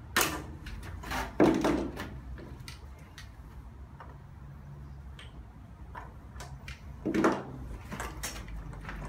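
Clicks and metal clatter of a hand wrench and fittings as parts are unbolted from a bare engine's cylinder head, with three louder scraping clatters among lighter ticks.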